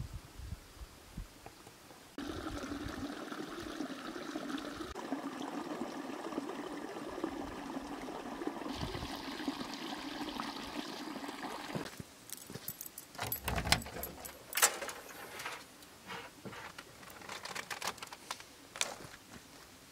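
Hot spring water running and trickling through concrete channels and pipes, as a steady rush. Then a few seconds of clicks, knocks and rattles as things are moved about in an open car trunk.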